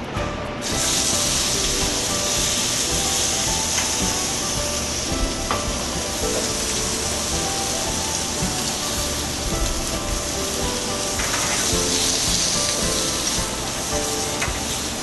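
Slices of calf liver searing in a very hot sauté pan: a steady sizzle that starts suddenly about a second in, as the liver goes into the pan.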